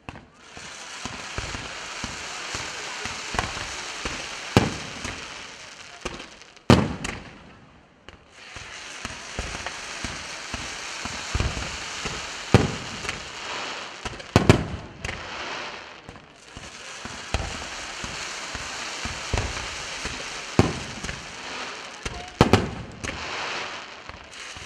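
Fireworks display: a steady hiss of fan-shaped jets of white sparks, broken every second or two by sharp bangs of shells and mines bursting. The hiss cuts out briefly twice, about a third of the way in and again past the middle, while the bangs go on.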